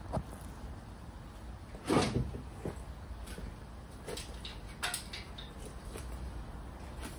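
Handling knocks and clunks as a car pedal box is lifted and moved around the weighing scales. There is a louder knock about two seconds in, then a few lighter clicks.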